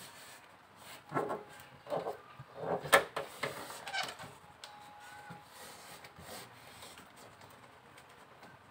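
Foil-faced heat insulation sheet rustling and crinkling as it is pressed and smoothed by hand onto the underside of a car bonnet, in a series of short scrapes with one sharp crackle about three seconds in.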